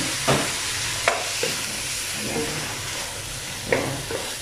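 Raw chicken pieces sizzling in hot olive oil in a pan, stirred with a wooden spatula that knocks and scrapes against the pan several times over a steady frying hiss.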